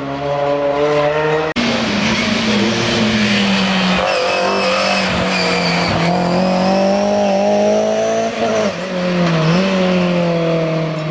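Historic rally car's engine at high revs, climbing in pitch, then cutting abruptly about one and a half seconds in to a car held hard on the throttle. Its pitch dips briefly twice near the end, as at gear changes.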